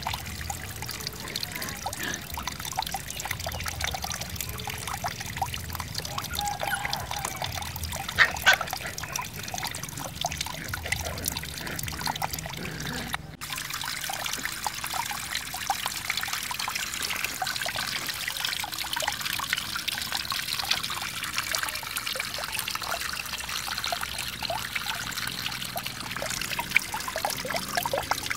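Water trickling and splashing from a clay pot over rocks into a small pool, a little garden waterfall, with a brief louder sound about eight seconds in.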